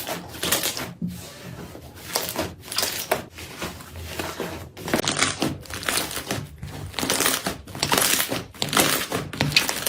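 Slime being squeezed and pressed by hand, giving an irregular run of crackling pops.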